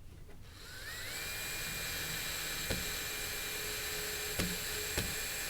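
Power drill-driver spinning up with a rising whine, then running steadily while it drives in the single screw that secures the speaker's rear cover. A few light clicks, and it stops suddenly at the end.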